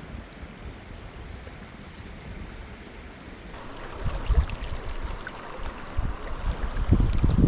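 Steady rush of flowing river water. From about halfway in, wind gusts buffet the microphone with low, uneven rumbles, making it louder.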